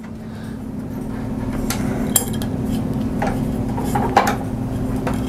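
Small metal bike parts and tools clinking and tapping about five times during assembly, over a steady low hum that grows louder.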